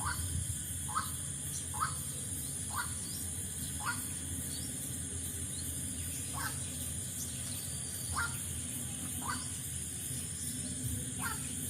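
A bird giving short, sharp squeaky chirps, about nine at irregular intervals of roughly a second, over a steady high hiss.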